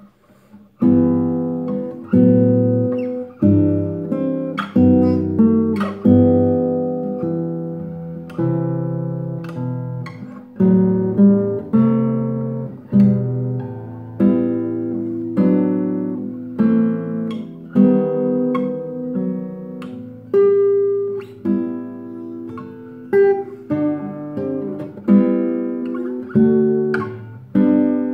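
Nylon-string classical guitar played solo: plucked chords and single notes that start about a second in, each struck cleanly and left to ring out before the next.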